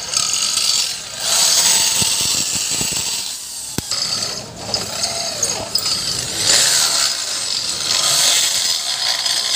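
Corded electric drill running under load, its bit boring into the steel shoe of a dump truck's drum brake at a lining rivet hole. The drill eases off briefly about a second in and again around four seconds in, with a sharp click at the second pause.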